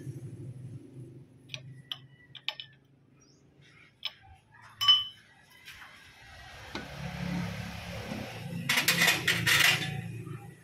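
Metal clinks and taps from handling a resurfaced flywheel at a lathe, with one sharper knock about five seconds in. From about six and a half seconds, a rushing machine noise with a low hum builds up, rattles loudest near the end, then stops.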